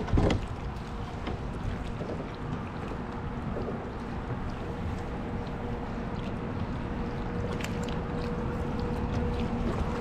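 Water lapping against a kayak hull, with wind on the microphone. There is a knock right at the start, and a faint steady hum comes in a few seconds in.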